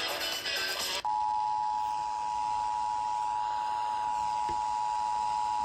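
Emergency Alert System two-tone attention signal: two steady tones sounding together near 900 Hz, starting about a second in and held at one even pitch. They mark the start of an alert, here a required weekly test, and come just before the spoken message. It follows about a second of dense, music-like sound that breaks off abruptly.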